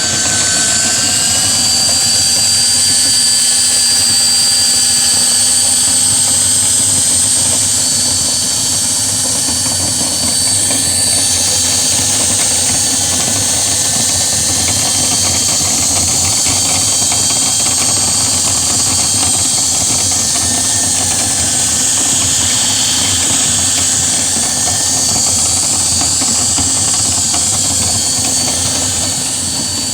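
High-speed electric motor of dryer vent cleaning equipment running steadily with a high whine, having just spun up to speed.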